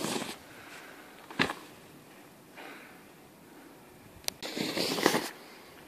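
A snowboard landing in snow with one sharp thud about a second and a half in. Near the end, a click and about a second of rough rustling noise.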